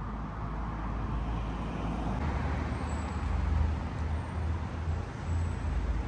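Steady outdoor background noise with a low, uneven rumble that grows louder about two seconds in.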